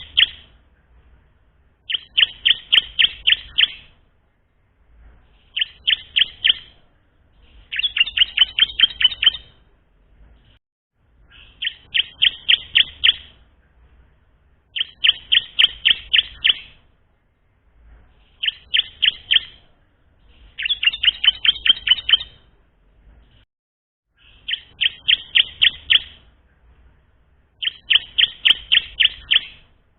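Ciblek (bar-winged prinia), a young bird still learning its song, singing short bursts of rapid, high chirping notes that repeat about every three seconds.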